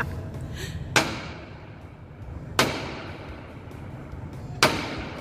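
Bronze ring door knocker struck three times against a massive bronze door, each knock followed by a long echo.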